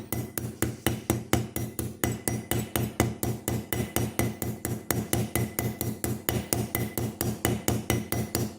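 Small hammer tapping steadily, about five light blows a second, peening a handle pin down on a pocket knife.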